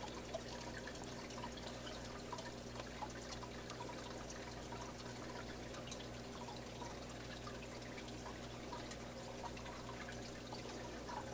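Faint aquarium water trickling and dripping, with scattered small ticks, over a steady low hum.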